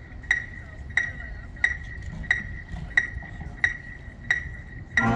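A metronome ticking a steady beat of about 90 a minute, each tick a sharp click with a short ringing tone. The band comes in on a sustained chord just before the end.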